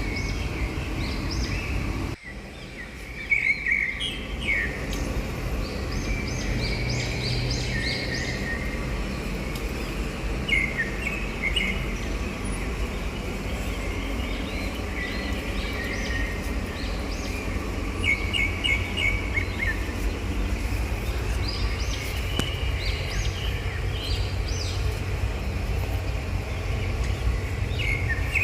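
Small birds chirping in short repeated bursts over a steady low rumble of outdoor background noise.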